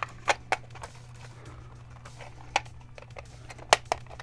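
Sharp clicks and taps of a plastic HO scale model boxcar being handled and parts fitted to it: a few in the first second, one near the middle, and two close together near the end.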